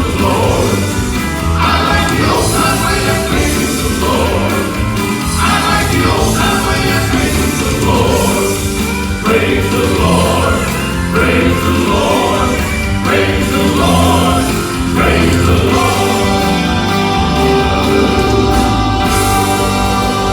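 Gospel quartet singing in harmony over instrumental backing. Near the end the music settles onto a long held chord.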